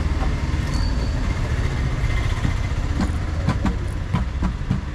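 Steady low rumble of road traffic, with a few light clicks in the second half.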